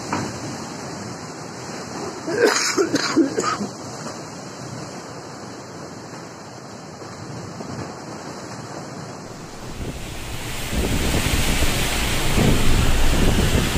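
Steady rush of fast-flowing floodwater, with a few brief loud bursts about two and a half to three and a half seconds in. About nine seconds in it gives way to louder cyclone winds and driving rain, buffeting the microphone with a deep rumble.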